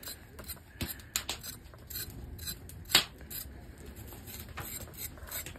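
Knife blade scraping singed hair off a moose nose on a wooden board: a run of short, irregular scrapes and ticks, with one louder stroke about three seconds in.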